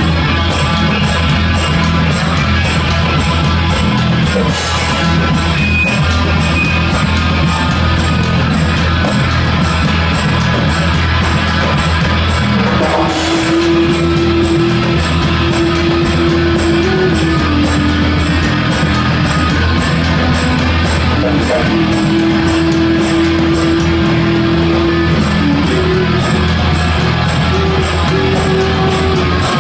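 Live rock band playing loud, with distorted electric guitars and drums. A long sustained note rings through the second half.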